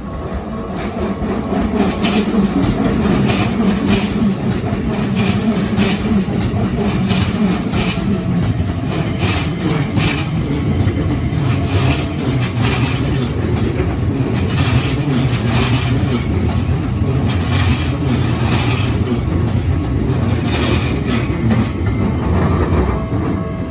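A Keikyu Line electric train passing over a level crossing: a steady rumble with repeated clacks of the wheels over the rail joints. It builds over the first couple of seconds and starts to fade near the end.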